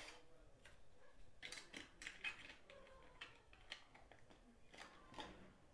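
Near silence, with a few faint scattered clicks and rustles of jewellery being handled.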